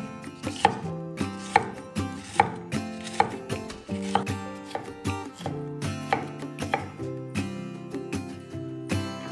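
Chef's knife dicing red bell pepper on an end-grain wooden cutting board, a crisp knock of the blade on the wood with each cut, about one a second, over soft background music.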